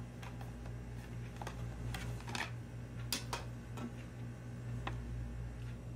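Irregular light clicks and taps of makeup items, such as an eyeshadow palette, being handled, over a steady low hum.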